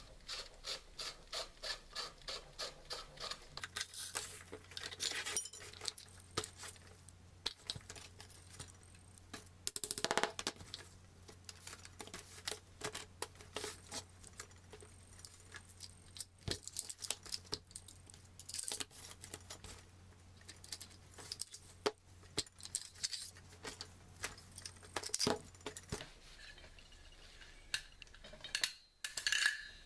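Metal parts of a Mossberg 590 pump-action shotgun clicking and knocking as it is taken apart by hand, opening with an even run of clicks about four a second, then scattered separate clicks and clacks. A faint low hum sits underneath for most of it.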